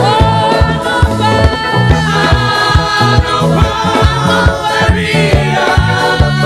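Live gospel praise music: a lead singer with a group of backing vocalists, over a band with a steady beat.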